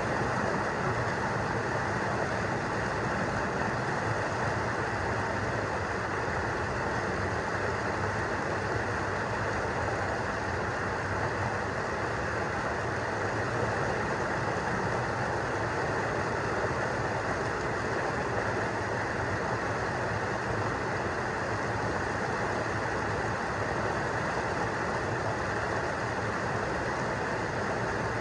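Stream water rushing steadily over a sloping rock ledge into a pool, a small waterfall churning white water around the legs of a person in waders.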